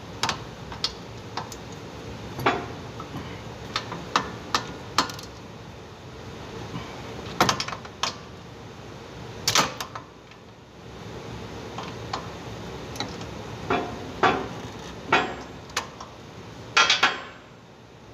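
Socket wrench on a long extension tightening the rear wheel bearing hub bolts: scattered sharp metallic clicks and clacks at irregular intervals, with a louder clatter near the end.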